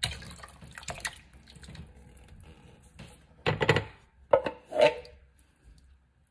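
Canned diced tomatoes splashing and plopping as they are tipped from the can into a pot of broth. Three louder bursts of knocks and scrapes come in the second half as the tomatoes are worked out of the can with a wooden spoon.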